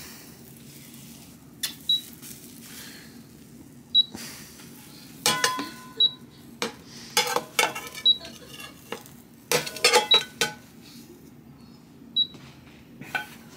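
Portable induction cooktop giving a short high beep about every two seconds while its display shows the E1 error, the alarm after the pan has been taken off. Over it, a frying pan and spatula knock and scrape against a ceramic plate as an omelet is slid out.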